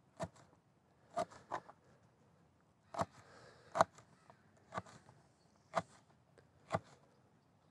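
Large stainless-steel knife slicing peppers thin on a plastic tote lid used as a cutting board. Each cut ends in a light, sharp tap of the blade on the lid, roughly one a second at uneven spacing.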